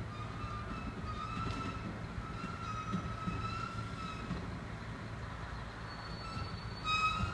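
Train brakes squealing: a wavering high-pitched tone over the low rumble of the train as it slows, growing louder with a sharper, higher squeal near the end.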